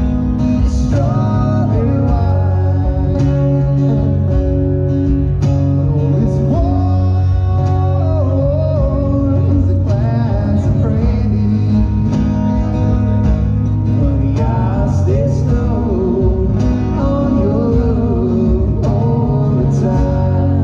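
Live band music: a man singing over a strummed acoustic guitar, with a second guitar and a strong steady bass underneath.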